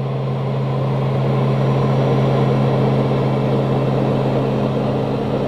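Steady cabin drone of a TBM 850 in cruise: the Pratt & Whitney PT6A-66D turboprop and its propeller turning at about 2,000 rpm. It is a constant low hum over an even rushing noise.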